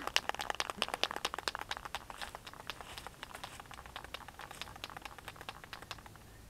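Aerosol spray-paint can being shaken, its mixing ball rattling in quick, regular clicks to mix the paint before spraying. The rattling gradually grows fainter.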